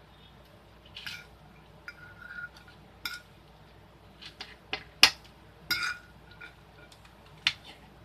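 A metal fork clinking and scraping against a ceramic plate and a baking tray while scooping oat dough: about ten irregular clinks, a few of them ringing briefly.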